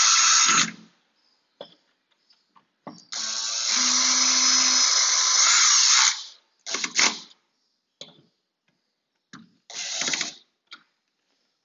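Power drill/driver driving in the long mounting screws of a door knob, with a whining motor. The first run stops just under a second in, and a second run of about three seconds starts about three seconds in, rising in pitch near its end. A few short clicks and rattles follow.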